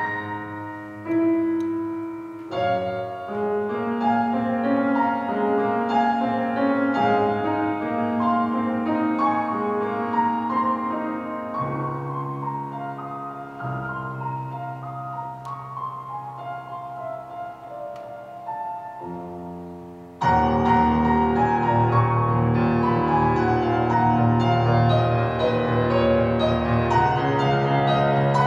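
Grand piano played solo: a flowing, fairly soft passage of many notes, which about two-thirds of the way through breaks suddenly into a much louder, fuller section with heavy bass.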